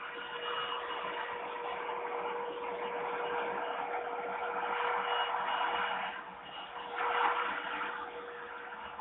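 Steady rushing background noise that swells and fades, dipping about six seconds in and surging again a second later, over a constant hum.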